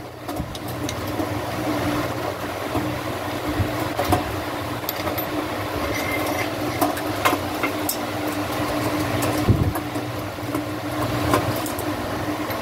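Scattered metal clicks and knocks from hands working a bicycle's crank and chainring assembly, over a steady mechanical hum.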